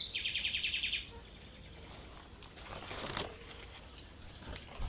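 Tropical forest ambience: a steady high-pitched insect drone, with a bird's rapid trill of about ten notes in the first second.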